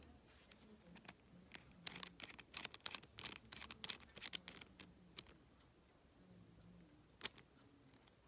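Faint, irregular small clicks and ticks of a precision screwdriver turning tiny screws into an iPhone 7's internal bracket, busiest through the middle, with one more click near the end.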